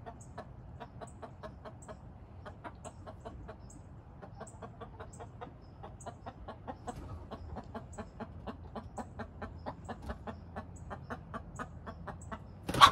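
Rhode Island Red hen clucking, a long run of short clucks several a second. A sudden louder noise comes right at the end.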